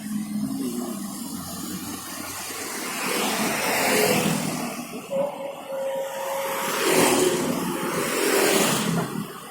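Motor vehicles passing on a road, their engine and tyre noise swelling and fading several times. The loudest pass comes about seven seconds in.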